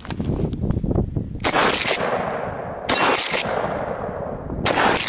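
A short-barreled Remington 870 12-gauge pump shotgun with a 12-inch barrel firing three shots about a second and a half apart, each followed by a long fading echo.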